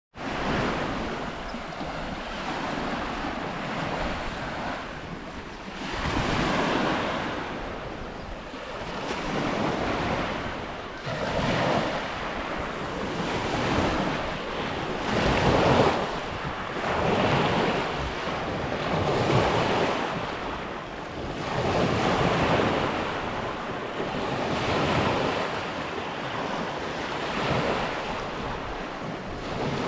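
Waves on Lake Baikal washing in against the shore, a continuous rushing that swells and eases about every two seconds.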